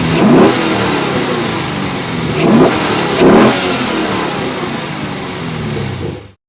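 Chevrolet Camaro SS 6.2-litre V8 idling and blipped three times, with quick rising revs near the start, about two and a half seconds in and just after three seconds. It is breathing through a freshly installed aFe cold air intake. The sound cuts off suddenly near the end.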